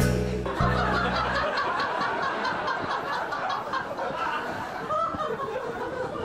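Several people laughing in quick repeated bursts. Background music with a steady bass fades out about a second and a half in.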